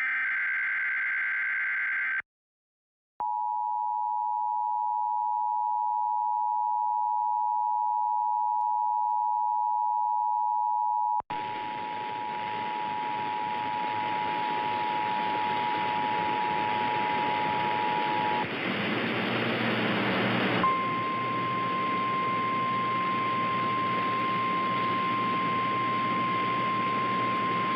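Emergency Alert System test signalling. The last burst of the screeching SAME digital header ends about 2 seconds in. After a short gap the two-tone attention signal sounds as a steady pair of tones. About 11 seconds in a hiss joins it, the two-tone stops about 18 seconds in, and a single steady tone, a little higher, takes over from about 20 seconds in.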